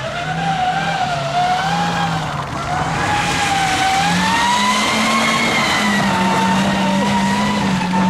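Toyota HiAce rally van's engine revving as it slides across wet gravel: the revs pulse up and down for the first few seconds, then climb about four seconds in and hold steady as it drives away, over the hiss of tyres on loose wet gravel.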